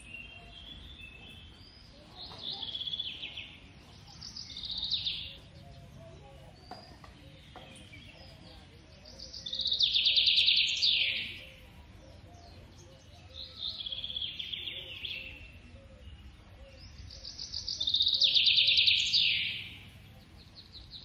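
High chirping calls in five bouts, each a rapid run of chirps lasting a second or two and ending in a falling trill, repeating about every four seconds over a faint steady background.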